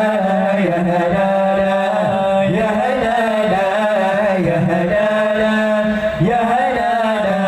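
Sholawat, Arabic devotional song in praise of the Prophet, sung by young male voices through microphones. A winding, ornamented melody runs over a steady low held note.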